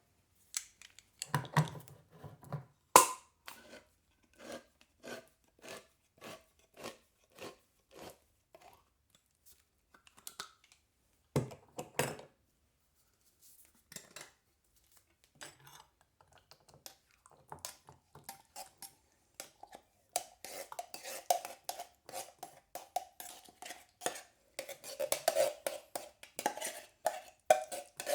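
Can opener working around a tin can, with evenly spaced clicks about every two-thirds of a second and a sharp metal knock near the start. Later the contents are scraped out of the tin into a metal saucepan: dense scraping and knocking, with the pan ringing.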